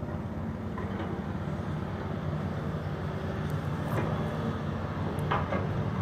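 Diesel engine of an amphibious pontoon excavator running steadily as it works, with a few light knocks in the second half.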